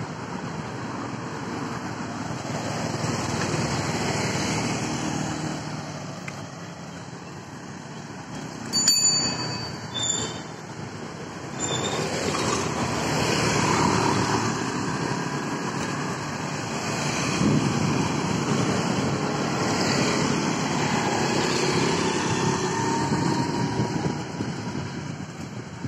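Street traffic heard from a moving bicycle: motorbikes and cars passing, swelling and fading over several seconds. A brief high ringing clink about nine seconds in, with a couple of smaller ones soon after.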